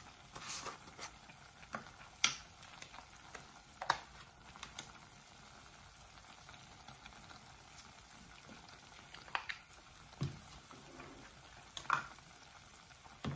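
Scattered light clicks and taps as seasoning containers and a measuring spoon are handled, about six sharp ones spread through, over a faint steady hiss.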